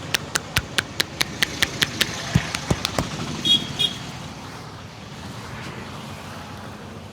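A barber's hands slapping rhythmically on a head during a head massage, about four slaps a second, stopping about three seconds in. Two short high beeps follow, then steady street traffic noise.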